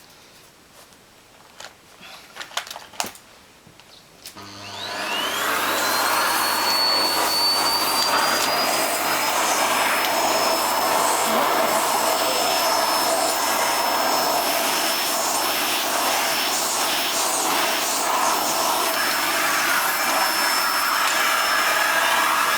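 A few light clicks and knocks, then a household vacuum cleaner is switched on about four seconds in. Its motor whine rises and settles into a steady high whine over the noise of the suction, and it keeps running.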